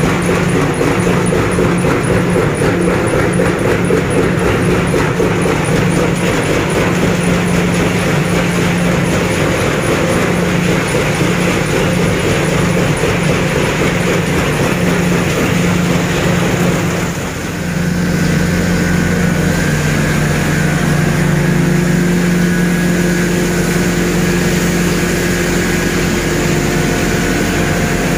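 Wood crusher and its conveyors running: a loud, steady machine noise with a constant low hum. Just past the halfway mark it changes abruptly to a smoother hum with a few steady tones.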